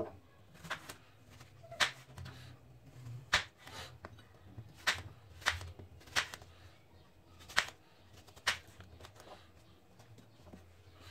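Kitchen knife slicing apple wedges on a wooden cutting board. The blade taps sharply on the board about eight times at an uneven pace, over a faint low hum, and the taps stop about nine seconds in.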